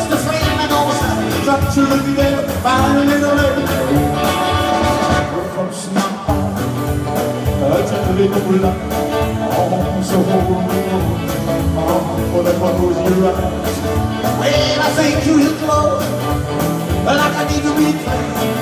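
Live rock and roll band playing: electric guitars, bass guitar and drum kit with a steady beat, and a male lead vocal singing over it in the first few seconds.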